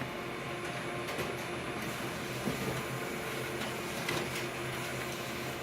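Konica Minolta copier running as it prints copies: a steady mechanical hum with a few faint ticks.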